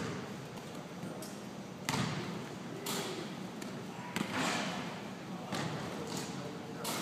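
Basketball bouncing on a hardwood gym floor: a handful of separate thuds about a second apart, echoing in the large gym.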